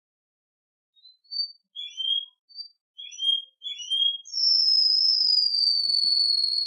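Domestic canary singing: a string of short chirps and quick rising notes, then from about four seconds in one long, clear whistled note that slowly falls in pitch.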